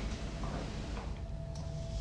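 Faint, unevenly spaced ticking clicks over a low steady hum and a thin held tone.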